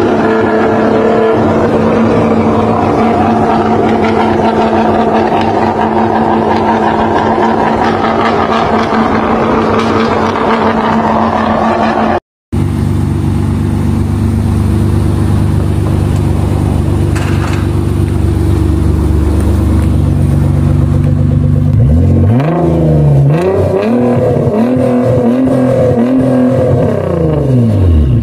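Nissan GT-R R35 twin-turbo V6 with a loud aftermarket exhaust, one car driving hard. After a brief cut, a second R35 idles steadily, then is revved in the stationary car about six times, each rev rising and falling back against a 5,000 rpm rev limiter.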